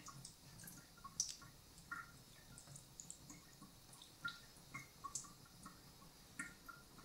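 Faint, irregular wet clicks and ticks as a striped beakfish's innards (liver and stomach) are cut and handled by hand.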